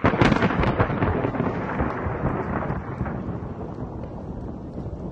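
A sudden loud crackling crash that rolls on as a rumble and slowly fades away.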